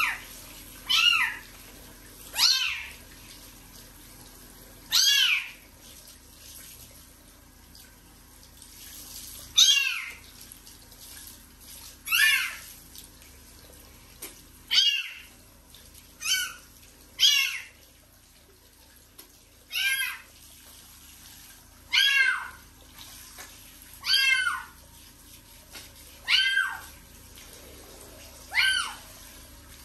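A young kitten meowing over and over, about fourteen high-pitched cries that each rise and fall in pitch, coming roughly every two seconds.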